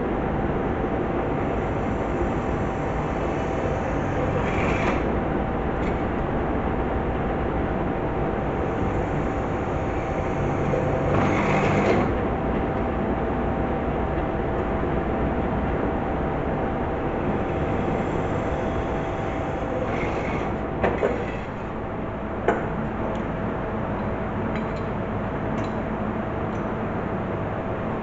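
A power tool running steadily with an even grinding noise and a constant hum, swelling briefly twice, with a few sharp clicks near the end.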